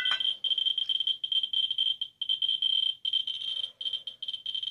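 Ludlum Model 3 survey meter's speaker chattering with a fast stream of high-pitched clicks from its 44-9 pancake Geiger-Müller probe. The clicks are so dense they blur into a flickering buzz: a high count rate of about 2,000 counts per minute from uranium glass. There is a short knock at the very start.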